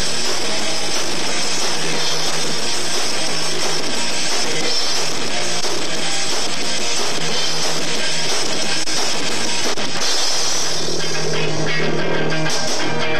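Live rock band playing loudly: electric guitar, bass and drum kit.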